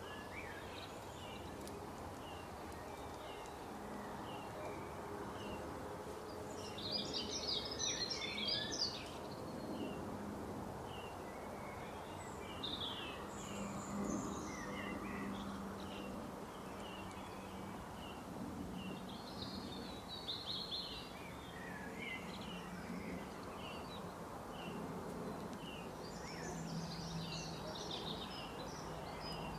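Birds chirping and singing: a short chirp repeats about once a second, with busier bursts of song about a quarter of the way in, around two thirds of the way through, and near the end, over a steady low hum.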